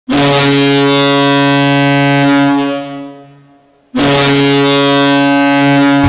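Färjestad BK's ice hockey goal horn, a recorded deep horn, sounding two long blasts. The first lasts about two and a half seconds and dies away gradually. The second starts about four seconds in and holds steady.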